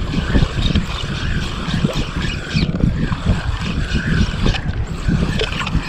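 Wind buffeting the microphone in uneven gusts, over the wash and lapping of shallow seawater.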